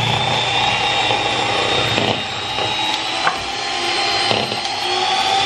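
Electric hand mixer running steadily, its twin beaters whisking cake batter in a glass bowl: a high motor whine, with the beaters knocking against the bowl a few times.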